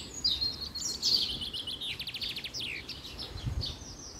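Songbird singing outdoors: a varied song of high chirps, with a fast trill about two seconds in and short downward-sweeping notes.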